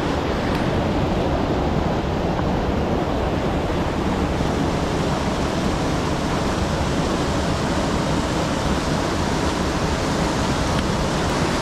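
River water rushing steadily, a full, even hiss with no breaks.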